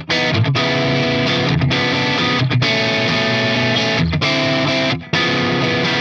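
Soloking MT-1 Classic electric guitar played through a drive (distortion) tone: sustained distorted chords with short breaks between them, and a brief stop about five seconds in.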